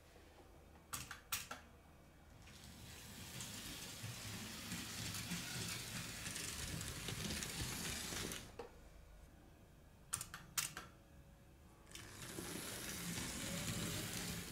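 Märklin M-Track model railway: two sharp clicks of the layout's electric points switching, then a small steam tank locomotive model with freight wagons rumbling over the metal track for several seconds. Two more clicks follow a little after ten seconds in, and the train runs again near the end.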